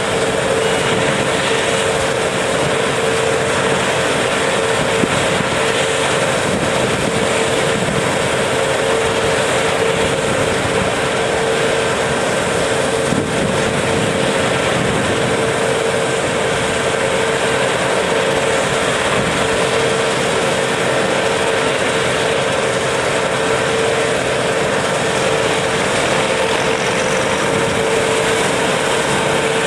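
Claas combine harvester running at work alongside a tractor, unloading grain into the tractor's trailer as it cuts: a loud, steady mechanical drone with a constant whine.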